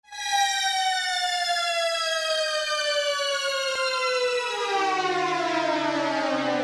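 A single long siren-like tone that starts abruptly and glides steadily down in pitch throughout. About two-thirds of the way through, low held notes come in beneath it as music begins.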